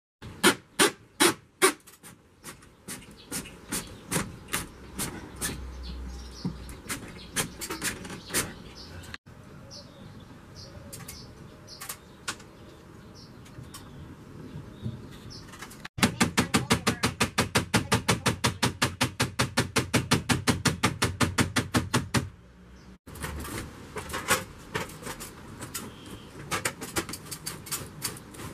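Repeated sharp clicks and taps, with a fast, even run of clicks at about eight a second lasting around six seconds.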